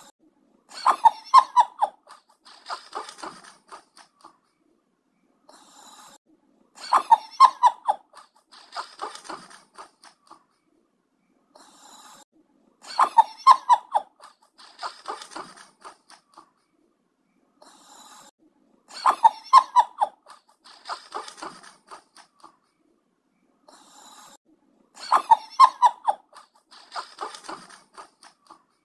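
Snoring sound repeating in an even cycle about every six seconds, five times over. Each cycle is a loud stretch of rapid pulses followed by a softer, shorter one.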